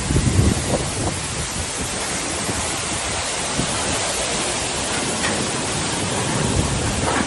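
Hurricane-force wind and rain making a steady rushing noise, with gusts buffeting the microphone in the first second and again near the end.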